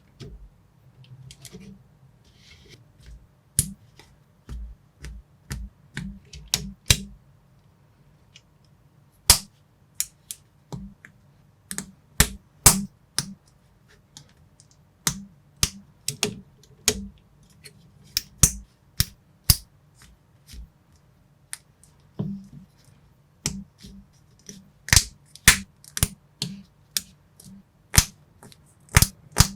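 Lego-compatible plastic building bricks being pressed and snapped together by hand: a run of sharp, irregular clicks, sparse for the first few seconds and coming thicker towards the end.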